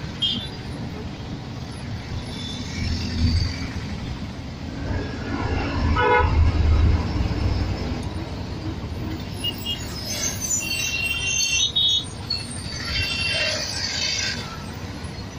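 Busy city road traffic heard from inside a moving vehicle with an open window: a steady engine and road rumble, with several car and motorbike horns honking, most clearly about two-thirds of the way through and again near the end.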